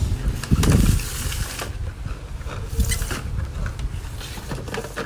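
Cosmetic jars and cardboard boxes being handled and packed: a scatter of knocks, clicks and rustles, the loudest a dull thump just under a second in.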